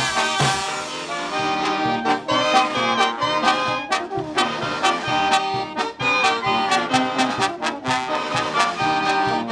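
Peruvian brass band playing a corrido huarochirano: trumpets and trombones carrying the tune over a steady drum and cymbal beat.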